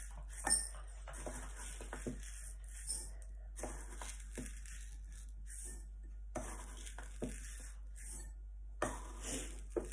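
Dry rice grains rustling as a plastic measuring cup scoops them from a ceramic bowl and pours them out, with a few small clicks of the cup against the bowl.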